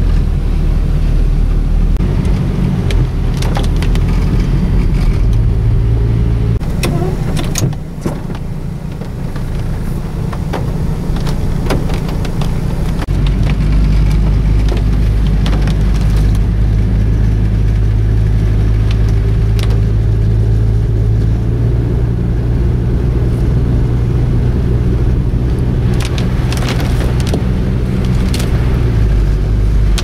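Car driving along a wet, slushy road, heard from inside the cabin: a steady low rumble of engine and tyres, with scattered sharp clicks and ticks now and then.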